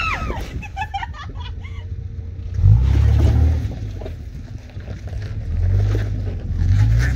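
Toyota Land Cruiser FZJ80's 4.5-litre straight-six engine pulling in low gear, revving up in three surges of throttle as the truck is bumped up rock ledges.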